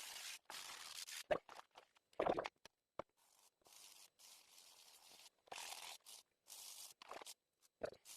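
A brush scrubbing carbon deposits off a Yamaha Blaster's two-stroke Wiseco piston, in repeated strokes of scratchy hiss with short pauses between them.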